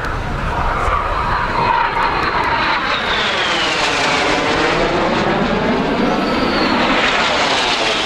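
Jet aircraft flying past, a loud steady rushing sound with a high engine whine that drops in pitch about three seconds in as it goes by. A second high whine comes in near the end.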